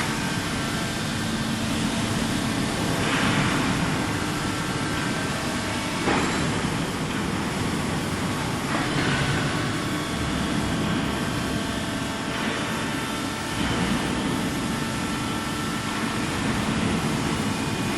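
Excavator's diesel engine running steadily with a low hum, while it works a hydraulic orange peel grab bucket. Brief swells of louder noise come every few seconds.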